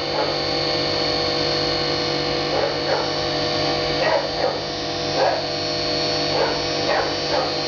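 A HAAS CNC machine running steadily, a constant hum made of several even tones. About ten short, sharp yelps break in over it at uneven intervals.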